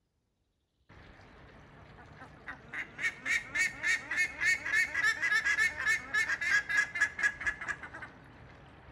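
A pair of large birds calling together in a rapid, even run of loud repeated calls, about four or five a second. The calls build up over a couple of seconds and then stop abruptly.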